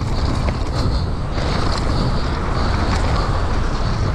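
Wind rushing over an action camera's microphone on a mountain bike racing fast downhill, with a heavy rumble of knobby tyres on a dirt trail and short rattles and knocks from the bike over bumps.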